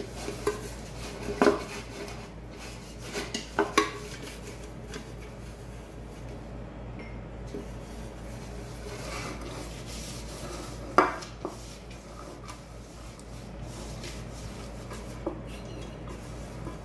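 Pastry brush rubbing oil around the inside of a metal tube cake pan to grease it, with a few sharp clinks against the metal, the loudest about eleven seconds in.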